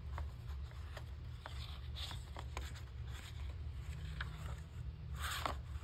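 Paper picture-book pages being handled and turned: soft rustles and small scrapes, with a louder swish of the page turning about five seconds in, over a steady low hum.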